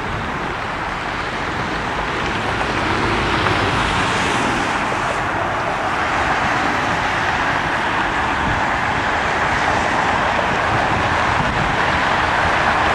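Jet airliner engines: a steady rushing roar that grows gradually louder through the first half.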